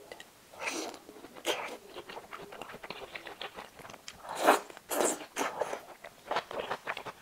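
Close-miked mouth sounds of eating steamed scallops with vermicelli noodles: wet slurping as the noodles are sucked up, the loudest about four and a half seconds in, with chewing, smacks and small mouth clicks between.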